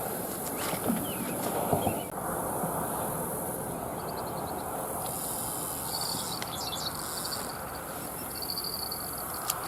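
Outdoor pondside ambience: birds chirping and trilling over a steady high insect buzz and a low rushing background. A few soft knocks come about one to two seconds in, and a sharp click comes near the end.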